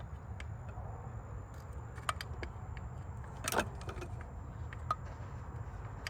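A few short, light metallic clicks and clinks of hand tools against bolts and engine parts, the loudest about three and a half seconds in, over a steady low hum.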